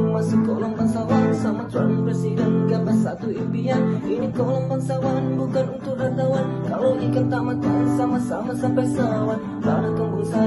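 Background music: a song track led by strummed acoustic guitar.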